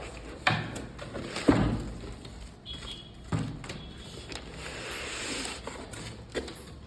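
A few knocks and thumps, three sharp ones spread over the first few seconds, then a brief rustle, as a cardboard laptop box and its packaging are handled.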